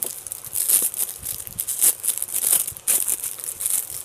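Clear plastic wrap around a plastic tiffin box crinkling as the box is handled and turned over, in irregular crackles.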